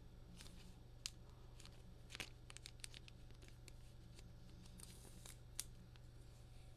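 Faint, scattered clicks and light rustles of trading cards being handled, over a steady low electrical hum.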